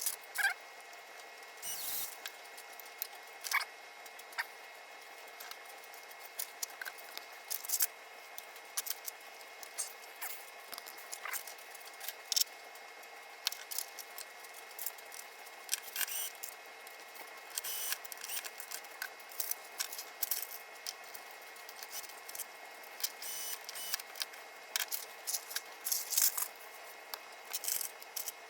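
Sped-up clatter of hand assembly work: rapid, irregular small clicks and taps of screws, hardware and tools being handled and fitted, over a faint steady hum.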